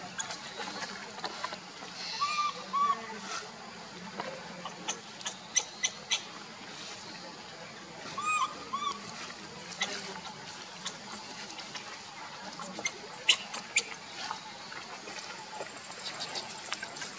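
Baby macaque giving short, high squeaking calls in two pairs, a few seconds apart, with scattered sharp clicks over steady forest background noise.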